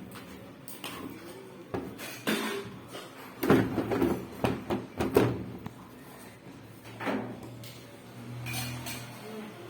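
Knocks and clattering from parts and tools being handled, with the loudest cluster in the middle, then a short low hum near the end.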